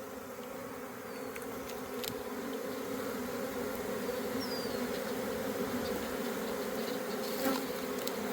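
Honeybee swarm buzzing, a steady, even hum that grows slightly louder.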